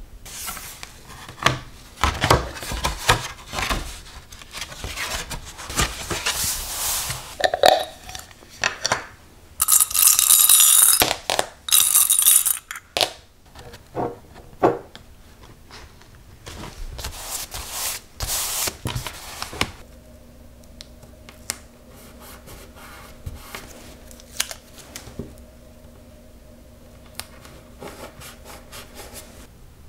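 Sheets of watercolour paper handled on a wooden desk, sliding and rustling, with taps and scrapes and small metal bulldog clips clinking. A louder stretch of rustling comes around ten seconds in. A faint steady hum sits underneath in the last third, under sparser small clicks.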